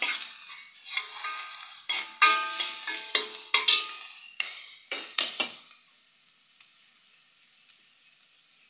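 Steel spoon scraping and clinking against a stainless steel pot, with ringing metal tones, while stirring garlic, onion and spices sizzling in oil. The stirring stops about six seconds in, leaving only a faint sizzle.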